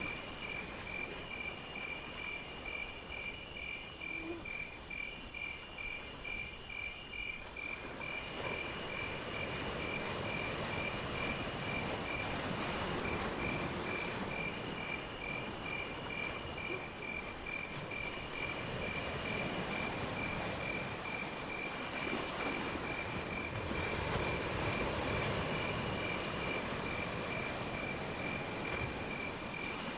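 Insects calling in a chorus: a cricket's rapid, steady trill, with a higher, shrill insect call repeating in bursts of about a second and a half with short gaps. A soft rushing background grows louder about eight seconds in.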